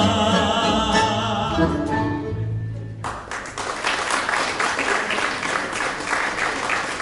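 Tango orchestra with strings and a male singer holding the final sung note with vibrato, closing on a low chord that dies away about three seconds in. Audience applause then breaks out and carries on.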